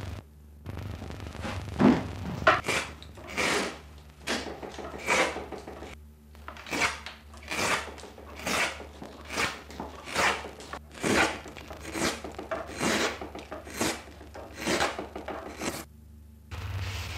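Hand-pushed carving gouge cutting into the wooden plate of a viola da gamba in steady repeated strokes, a little more than one a second, starting about two seconds in.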